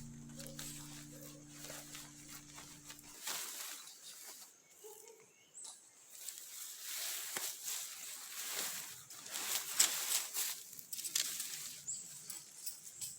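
Background music holding a chord, cut off about three seconds in, followed by irregular rustling and short clicks, with a few sharper clicks near the end.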